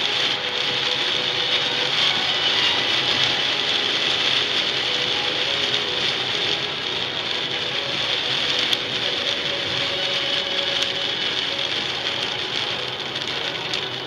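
Steady hiss of heavy rain and tyre spray on a wet highway, heard from inside a moving car, with engine and road noise underneath.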